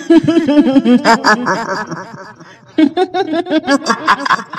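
A woman's rapid cackling laugh, the "hihihi" of a kuntilanak ghost. It comes in two runs with a short break a little past halfway.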